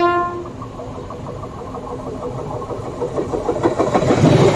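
The end of a WAP7 electric locomotive's horn, one steady tone, cutting off about half a second in. Then the rumble and rattle of the train running on the track, which grows louder about three and a half seconds in.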